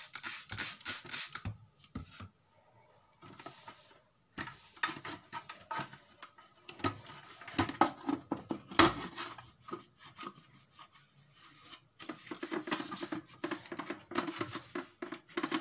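A cloth rubbing and wiping over the plastic housing of a kitchen appliance in runs of short strokes, with a couple of brief pauses.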